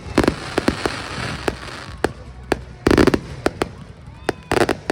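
Aerial fireworks going off: a quick run of sharp pops and crackling over the first two seconds, then louder, longer bursts about three seconds in and again near the end.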